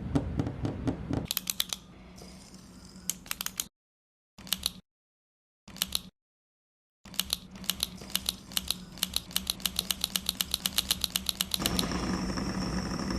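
Aluminium fidget roller clicking as it is rolled and pushed back and forth in the hand: trains of sharp, evenly spaced metallic clicks, several a second, broken by a few short dead-silent gaps.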